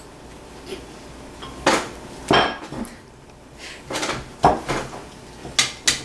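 Dishes clattering on a table: a string of about six sharp knocks and clinks of plates and cutlery, loudest in the second half.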